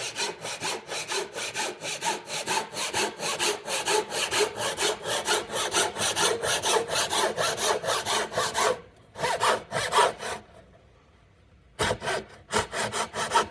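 Japanese handsaw (nokogiri) cutting across wood by hand in quick, even strokes, about four a second. The sawing stops about nine seconds in, comes back for a few strokes, pauses, and starts again near the end.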